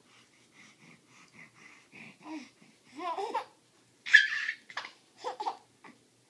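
A baby babbling and laughing in short bursts that grow louder, with a loud, high-pitched shriek about four seconds in.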